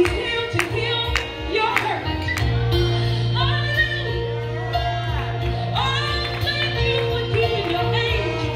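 Recorded gospel song playing: a singer's voice over sustained keyboard-like chords, a steady bass line and a regular beat.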